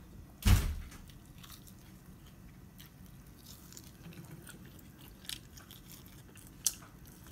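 A person chewing food close to the microphone: soft, crackly mouth and crunching clicks. There is one loud thump about half a second in and a single sharp click near the end.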